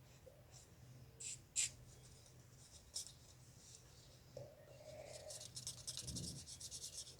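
Faint small handling noises: a few light clicks, then rapid light tapping and scratching near the end, as talc is worked out of a pen tube into a small plastic vial.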